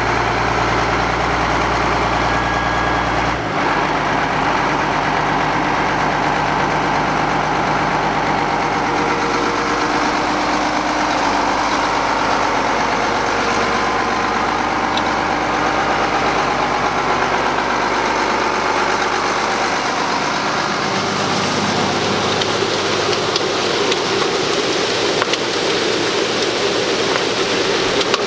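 Case IH 7140 Magnum tractor's Cummins six-cylinder diesel running steadily close by. Its deep low note drops away about three and a half seconds in, and the engine keeps running after that.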